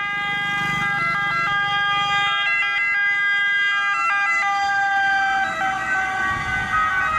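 Electronic ambulance siren sound: a steady, buzzy tone that steps up and down between pitches, starting and stopping abruptly.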